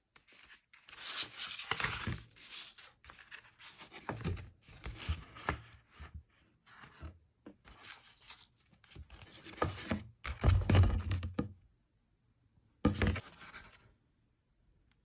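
Paper card being handled and opened: rustling, rubbing and scraping in irregular bursts with short pauses, loudest a little past the middle, with a final short burst near the end.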